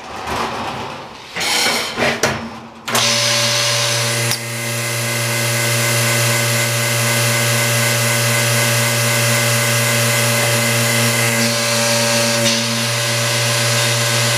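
A few knocks and clatters, then about three seconds in a powered machine starts and runs loudly and steadily with a low hum and a hiss, stopping at the very end.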